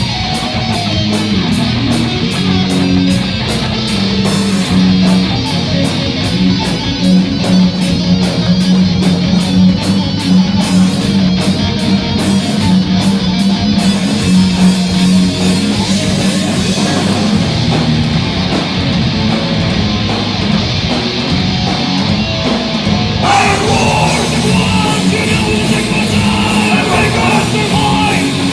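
Loud live heavy metal band playing, with singing; the texture changes about two-thirds of the way through as a vocal line comes to the fore.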